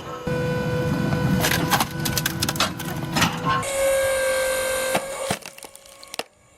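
Wood crackling and splintering under a press machine, with dense cracks for the first three seconds or so. A steady whine joins about halfway through, then the cracking thins out and gets quieter near the end.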